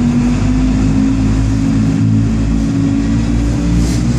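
Engine of an amphibious duck tour vehicle running steadily with a low drone, heard from inside the open passenger cabin. A brief hiss comes in near the end.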